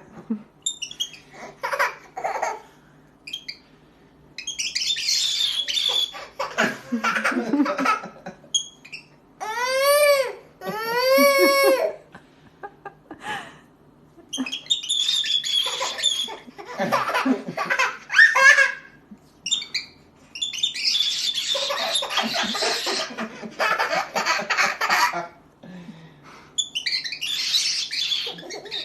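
A baby's voice laughing and fussing, mixed with a pet parrot's harsh squawks and calls; two rising-and-falling calls stand out about ten seconds in.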